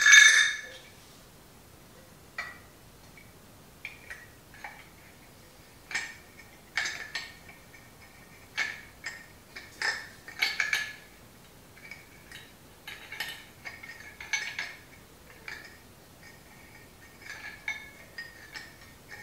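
Chrome air cleaner cover, screw and Allen wrench clinking and tapping against each other and the carburetor as the cover is fitted and screwed on: irregular light metal clicks, many leaving a short ring, with a louder clank right at the start.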